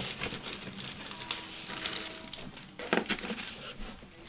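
Rummaging in a cardboard shipping box: scattered light rustles and clicks of packaged fishing tackle being handled, with one sharper knock about three seconds in.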